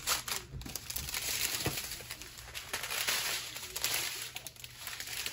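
Small plastic zip bags of diamond-painting drills rustling and crinkling as they are handled and shuffled by hand.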